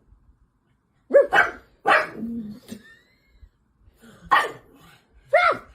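A dog barking: two barks about a second in and two more near the end.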